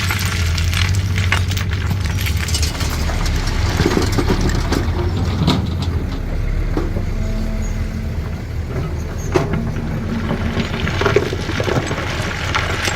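CAT 320D excavator's diesel engine running steadily, a little louder in the first half, with scattered sharp knocks and clatters.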